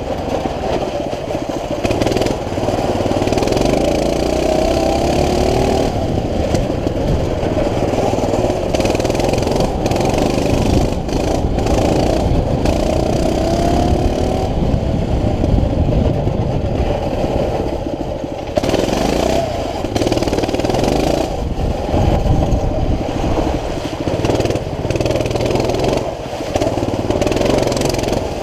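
CT200U mini bike's small single-cylinder engine running under way, revving up and down again and again as the throttle is worked, with occasional rattles and knocks from the bike over rough ground.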